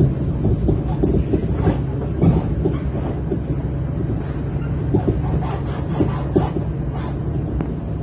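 Regional train running along the track, heard from inside the carriage: a steady low rumble of wheels on rail, with frequent short knocks and rattles.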